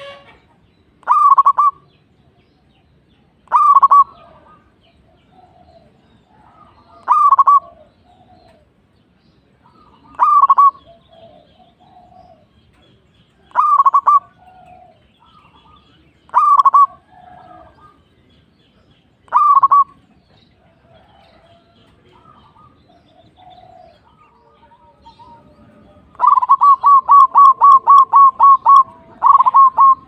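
Zebra dove (perkutut) cooing: short cooing phrases repeated about every three seconds, then near the end a rapid run of about a dozen quick coos.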